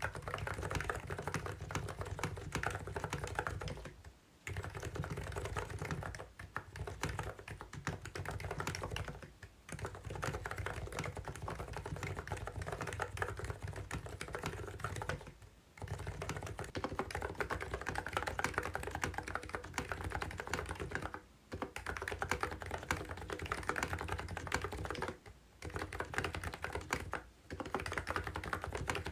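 Fast, continuous typing on a COX CNK84W electro-capacitive (contactless, Topre-style) mini keyboard: a dense run of keystrokes broken by short pauses every four to six seconds.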